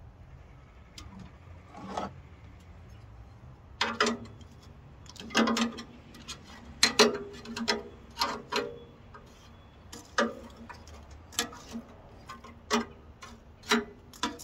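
Metal fire poker raking through a bed of hot coals in a small steel wood stove's firebox: a run of sharp, irregular clinks and scrapes of metal on metal and embers, starting about four seconds in.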